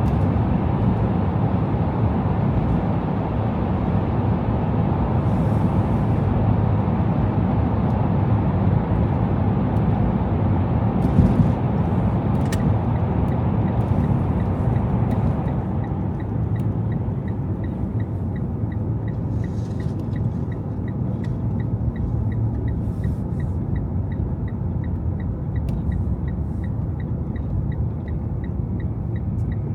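Car driving on snowy city streets: a steady low rumble of road and engine noise, easing somewhat about halfway through. From then on a light, regular ticking runs at about three a second.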